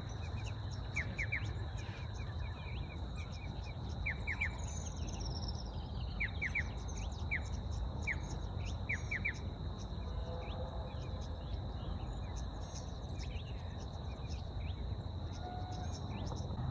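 Outdoor bush ambience: birds chirping in short runs of two or three notes about once a second, with a single falling whistle about five seconds in, over a steady high insect hum and a low, even rumble.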